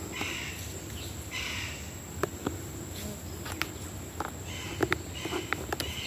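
Insects chirping in repeated bursts about half a second long over a steady high-pitched insect drone, with scattered sharp clicks.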